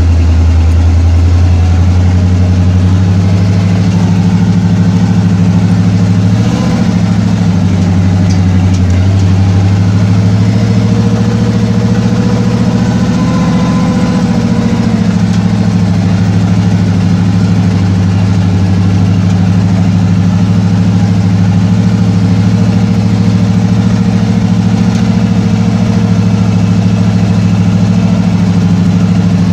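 Off-road vehicle's engine running at low, steady revs as it drives slowly along a dirt trail: a loud, steady drone whose pitch drops slightly about two seconds in.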